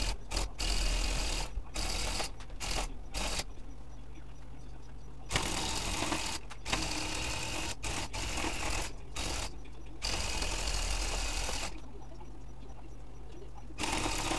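Handheld electric tufting gun running in several short bursts, then in one long run of about six seconds, and starting again near the end, its needle rapidly punching yarn into the stretched backing cloth.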